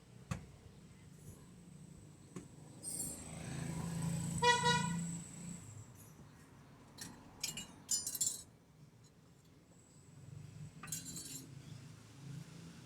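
Metal tools and parts clinking and rattling in a repair shop, in scattered short knocks. About four and a half seconds in there is a short high tone, something like a horn.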